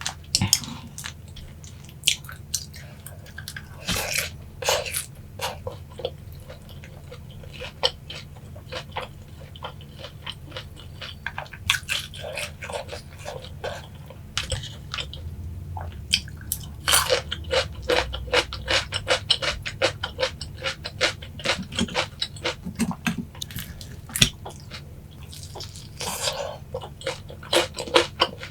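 Close-up chewing and crunching of boneless sweet-spicy Korean fried chicken (yangnyeom chicken): a steady run of crisp crackles and wet clicks, with louder bursts of crunching every several seconds.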